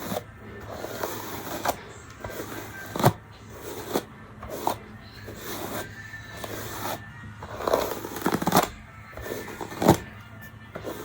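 Irregular scraping and rustling of hands handling hair, with a few sharp knocks, the loudest about three seconds in and again about a second before the end.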